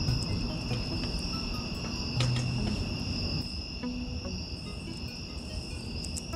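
Steady outdoor chorus of singing insects at dusk, a continuous high trill in two pitches, with a low rumble and a few faint clicks underneath.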